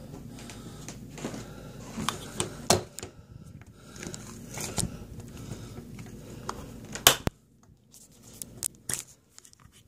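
Handling noise at a phone camera: scattered knocks, rubs and clicks. A loud knock comes about seven seconds in, after which the low background hum drops away.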